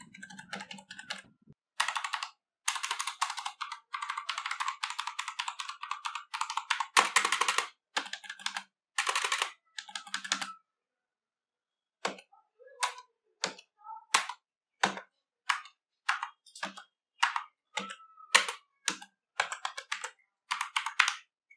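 Typing on a Logitech MK345 full-size membrane keyboard: a fast run of keystrokes, then after a short pause single keys tapped one at a time, about two a second.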